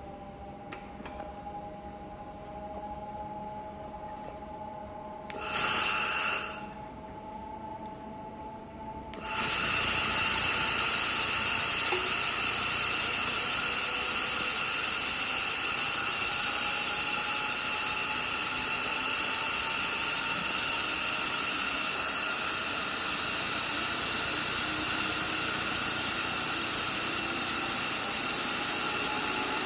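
2500 W handheld laser welder welding 7.9 mm mild steel. A brief burst of hiss comes about six seconds in, then from about nine seconds a loud, steady, high-pitched hiss with a thin whine over it.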